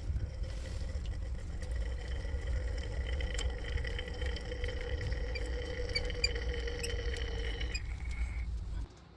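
Hot water rushing out through a steam boiler's drain valve, a steady rush with a faint high whistle. The whistle fades out and the flow cuts off about a second before the end as the valve is closed.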